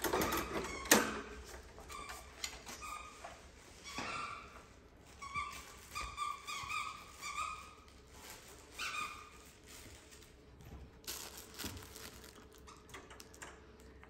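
Wire bird cage clicking and rattling as it is handled, with one sharp clack about a second in. Short chirping calls come in a scatter through the middle.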